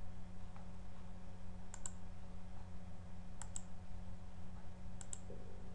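Computer mouse button clicked three times, each click heard as a quick press-and-release pair, spaced about a second and a half apart, over a steady low hum.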